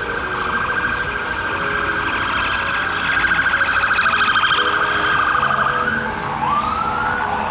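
Electronic siren sounding a high, rapidly pulsing tone, then a rising wail near the end.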